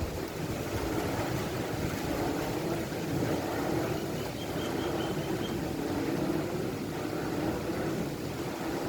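Windmill running loud in the wind, a steady rushing sound like waves heard from a boat at sea.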